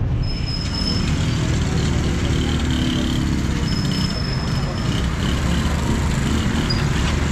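Busy street traffic: a steady din of motorcycle and car engines running. A few thin high-pitched tones come and go over it.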